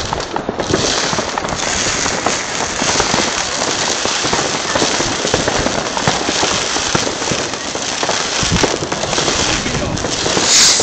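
Fireworks and firecrackers going off all around in a dense, continuous crackle of many overlapping small bangs, with a louder burst near the end.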